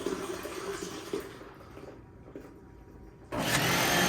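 Pear juice pouring into a container, trailing off. About three seconds in, the NutriBullet centrifugal juicer's motor switches on abruptly and runs steadily and loudly.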